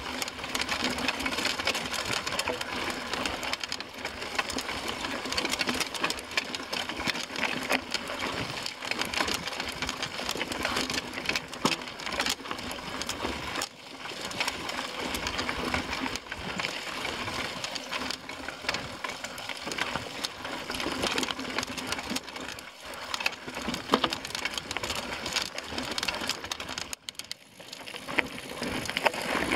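Mountain bike riding over rocky dirt singletrack: continuous rattling and clattering of the bike, with tyres crunching over stones and gravel. There is a short lull near the end.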